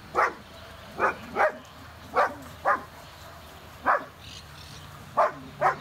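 A dog barking repeatedly: about eight short barks, unevenly spaced, some in quick pairs.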